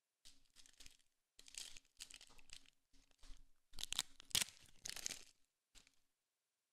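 Foil trading-card pack wrapper being torn open and crinkled, in a string of short, uneven bursts with brief pauses, the loudest about four and a half seconds in.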